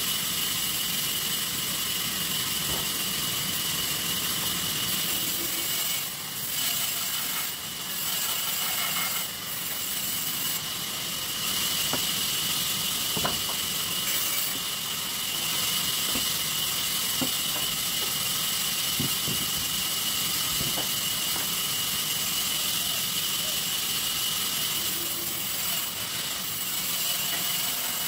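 Sawmill saw machine running steadily and cutting shisham wood, with a constant high whine over the noise of the cut.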